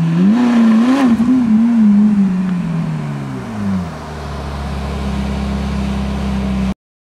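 Ferrari 458 Italia's 4.5-litre V8 at low revs, with small rises and falls in engine pitch in the first second or so, then the revs falling away. From about four seconds in it holds a steady low-rev note, and the sound cuts off abruptly shortly before the end.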